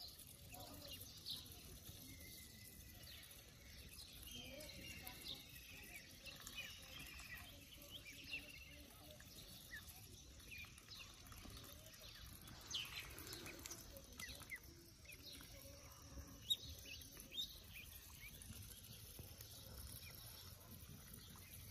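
Domestic ducks and ducklings feeding: faint high duckling peeps and short irregular clicks of bills picking at feed on the ground, with one sharper click about two-thirds of the way through.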